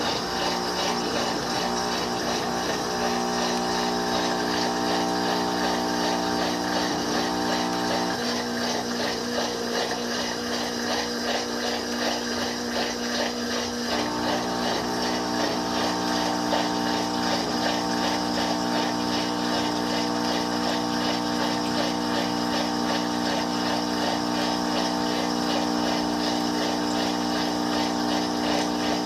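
Electrolux Turbo Limpeza washing machine's drain pump running and pumping out water: a steady motor hum over the rush of water. The lowest part of the hum drops out about 8 seconds in and returns around 14 seconds in.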